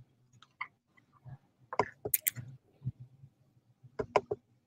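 Scattered soft clicks and knocks from someone handling things at a computer on a video call, in a cluster about two seconds in and another near the end, over a faint low hum.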